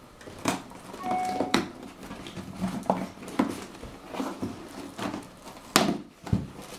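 Cardboard box flaps being pulled open and handled: irregular scraping, rustling and sharp taps of cardboard, with the sharpest knock a little before the end.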